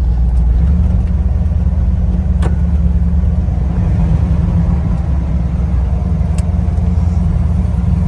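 1973 GMC pickup's engine pulling under throttle while driving, heard from inside the cab as a steady low drone with road noise.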